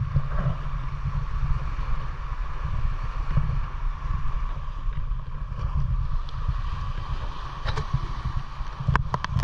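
Wind buffeting the microphone, a heavy steady rumble, over small waves washing onto a sandy shore. A few sharp clicks near the end.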